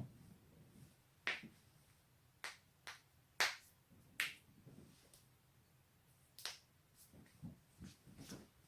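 Human joints cracking: about ten sharp pops at irregular intervals, some loud and some faint, with a few duller knocks among them.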